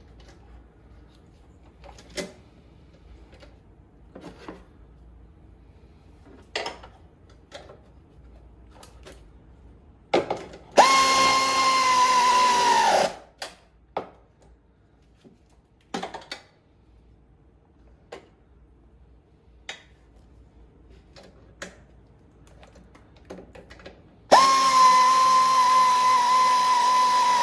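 Power drill running in two bursts of about two and three seconds, driving a mounting fastener down snug; its whine sags in pitch as the first one tightens. Light clicks and taps of tools and parts come between the bursts.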